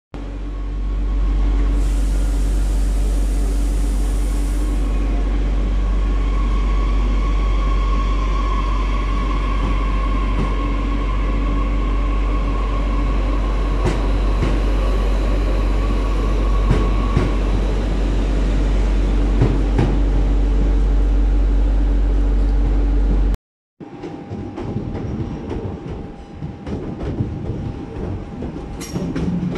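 SNCF AGC Z 27500 electric regional train pulling out of an underground platform: a steady deep hum with a traction whine, running for about 23 seconds. After a cut, a Régiolis regional train rolls past with wheels clicking over the rail joints.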